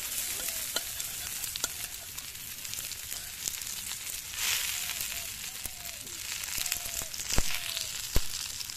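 Paneer tikka skewers sizzling in oil on a hot iron tawa as they are turned with a metal spatula. The sizzle swells louder about halfway through, and two sharp clicks come near the end.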